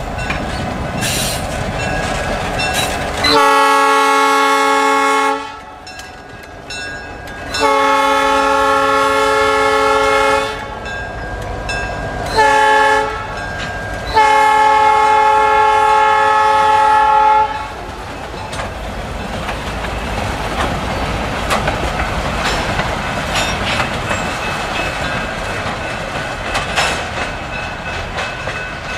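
Diesel freight locomotive air horn sounding the grade-crossing signal, long, long, short, long, as the locomotives pass close by with their engines running. After the last blast, the freight cars roll past, with steady wheel noise and scattered clicks of wheels over the rail joints.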